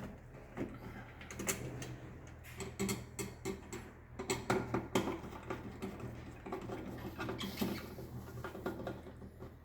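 Hand-tool work on cable terminations in a distribution board: irregular small clicks, taps and scrapes of screwdriver and cable handling, over a steady low hum.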